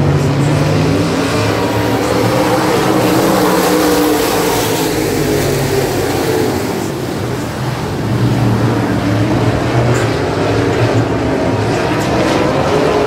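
Super Stock dirt-track race cars running laps as a field, their engines' pitch wavering up and down as they work the turns and straights. They are briefly quieter a little past halfway.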